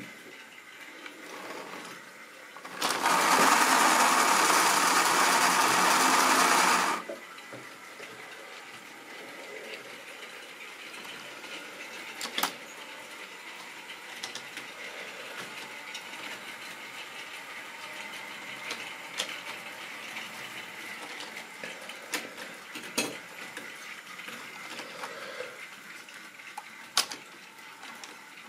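Model railway train running for about four seconds, a loud whirring of the motor and wheels on the track that starts and stops abruptly. Then a hand moves a plastic tank wagon on the rails, with scattered light clicks.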